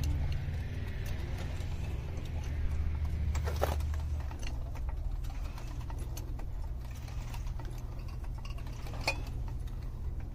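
Daytona low-profile floor jack being pumped by its handle to lift a car: rhythmic mechanical clicking over a steady low hum, with a sharper knock about a third of the way in and another near the end.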